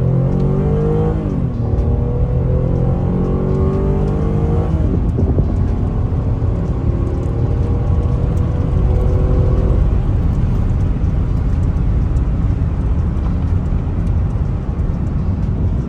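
Chevrolet Impala accelerating hard: the engine note climbs and drops back as it shifts up, about a second and a half in and again near five seconds, then climbs for a long stretch. From about ten seconds in there is a steady rumble of engine, road and wind as it runs at speed.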